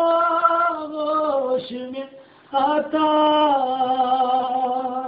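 A man singing a Shia lament (noha) unaccompanied, holding two long drawn-out notes that slide downward, with a short breath about two seconds in.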